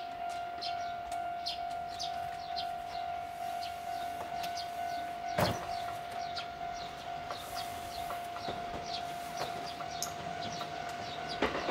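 Railway station platform sounds: a steady, unchanging hum-like tone with quick, repeated high chirps over it and a single sharp knock about halfway through. Just before the end, the rumble of a train approaching on the rails starts to rise.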